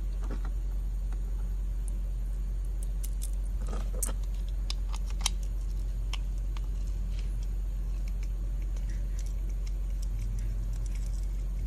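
Scattered light clicks and taps of clear acrylic plates and small metal hardware (washer, knob bolt) being handled and screwed together, with a sharper click about five seconds in, over a steady low hum.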